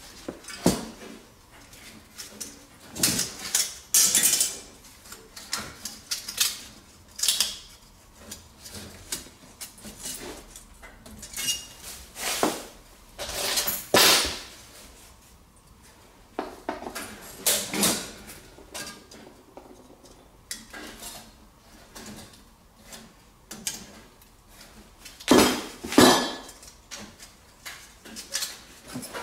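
Thin aluminium fins being bent and torn off the copper pipe of a baseboard heater element. Irregular bursts of metallic crinkling, scraping and clinking, with the loudest pair near the end.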